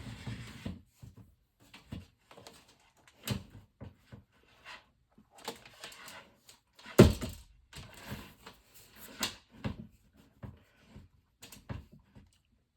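Handling noise from a plastic box fan being moved and turned about: scattered clicks, knocks and rustles, with one sharp knock about seven seconds in.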